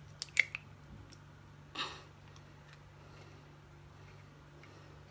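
A table knife tapping an egg shell: a few quick sharp clicks, then a brief crunch about two seconds in as the shell is cracked open.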